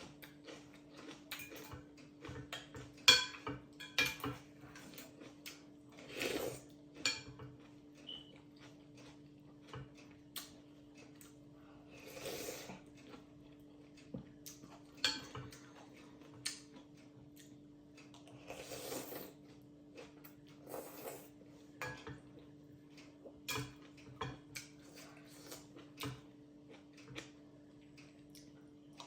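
A meal of noodles being eaten: cutlery clicking and clinking against a bowl, with several brief slurps and chewing, over a faint steady hum.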